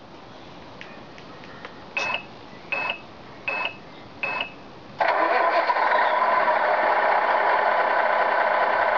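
Electronic sound unit of a Tamiya 1/16 Knight Hauler RC truck playing a simulated truck engine start. Four short bursts come about three quarters of a second apart, then the engine sound comes in loudly about five seconds in and runs steadily.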